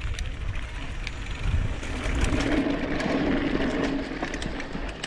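Mountain bike rolling down a dirt singletrack: wind buffeting the microphone, tyres running over dirt and loose stones with scattered clicks and rattles, and a steady buzz from about two seconds in until near the end.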